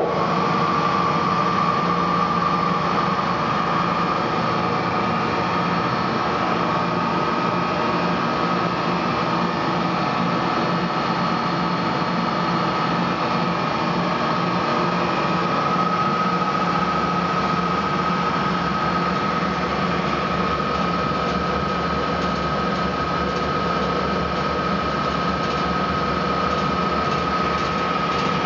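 Bear R150 150-litre planetary mixer running steadily with its wire whisk in an empty bowl: an even motor-and-gearbox hum with a steady high whine.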